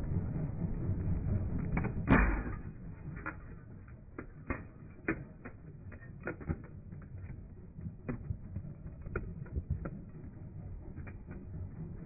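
A pickup truck's tyre crushing a flashlight and plastic Play-Doh tubs on gravel. One loud crack comes about two seconds in, followed by a string of scattered smaller cracks and clicks as the pieces break and shift. The low rumble of the truck's Cummins diesel runs under the first two seconds.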